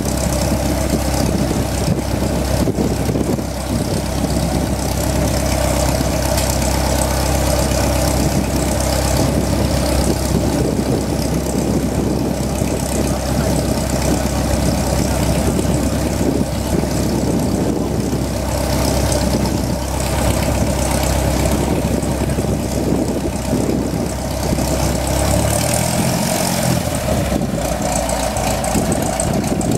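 Cessna 172S Skyhawk SP's four-cylinder Lycoming piston engine and propeller running steadily at low taxi power as the aircraft taxis past.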